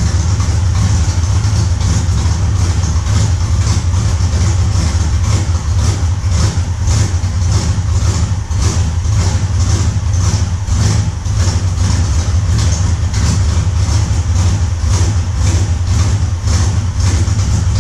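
Engine idling steadily, with an uneven pulse about twice a second.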